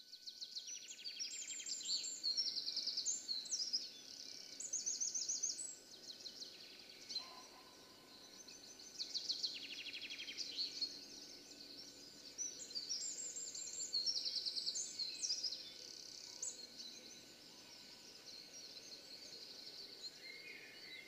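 Songbirds singing: short, rapid high trills and chirping phrases that come and go every few seconds over faint background noise.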